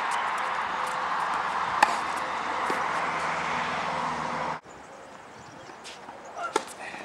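Tennis ball struck by a racket during a rally: one sharp hit about two seconds in and another near the end, over a steady hiss that cuts off suddenly partway through.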